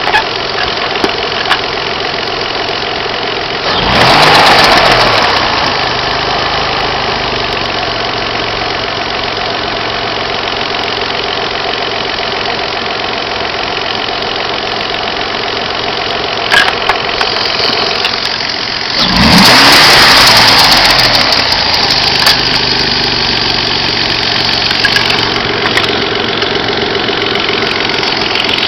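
Opel X25XE 2.5-litre V6 engine idling steadily, revved briefly twice, about four seconds in and again about nineteen seconds in, each time rising and falling back to idle. The owner hears a strange noise from it.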